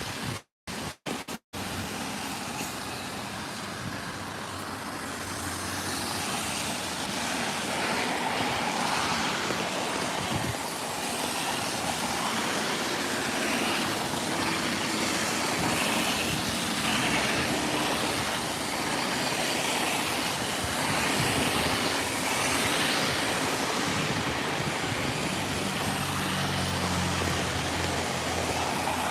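Road traffic on a wet street: a steady hiss of tyres and passing engines. A heavier engine hum comes in near the end. The sound cuts out completely for a moment two or three times near the start.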